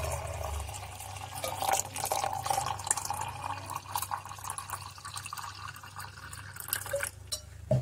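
Chilled water poured in a steady stream into a jar of strained melon-seed paste and ice, splashing and frothing; the pour stops near the end.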